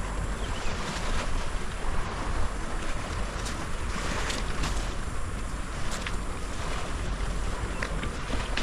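Wind blowing across the microphone over the sea washing against a rocky shore: a steady rushing with a heavy low rumble.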